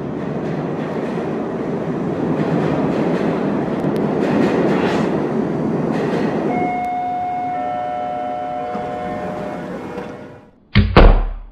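A steady rumble, joined about six and a half seconds in by a horn holding a chord of several tones, then two loud thumps near the end.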